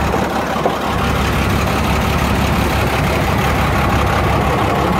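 A truck engine idling steadily, sounding pretty good.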